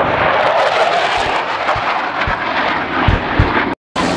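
Military jet aircraft flying overhead: a loud, steady jet roar, broken by a brief dropout near the end.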